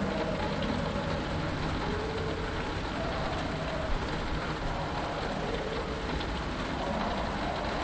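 Steady rain pattering on a cockpit canopy, with a low rumble underneath and faint wavering swamp-creature tones drifting in and out. A single light click comes about four seconds in.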